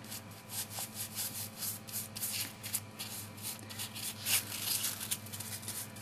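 Stiff paintbrush scrubbing black craft paint into the cracks of carved styrofoam: a run of short, soft, scratchy strokes, several a second, over a low steady hum.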